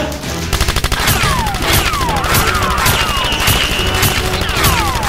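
Movie-style automatic gunfire sound effect: a fast, unbroken run of shots, with several falling whistles like bullet ricochets and a high held whine in the middle.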